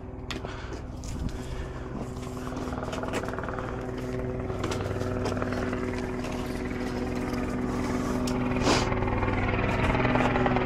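Helicopter flying overhead: a steady drone that grows gradually louder. A few light knocks close by.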